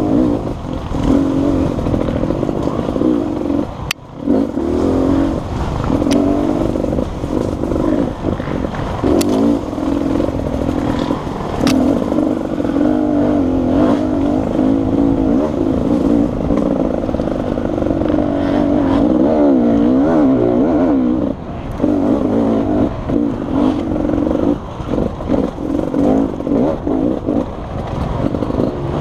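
Beta RR 300 two-stroke enduro engine under hard riding, revving up and down as the throttle opens and closes, with brief drops where the throttle shuts about four seconds in and a little past twenty seconds in.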